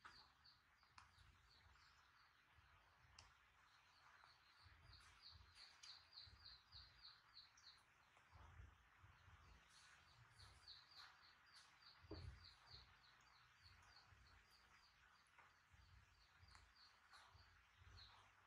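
Faint bird chirping: runs of short, high chirps at one pitch, several a second, repeating throughout, with a soft thump about twelve seconds in.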